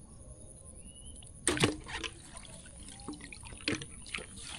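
Water splashing and running off a mesh shrimp trap as it is lifted out of the river, with a louder splash about a second and a half in and dripping after.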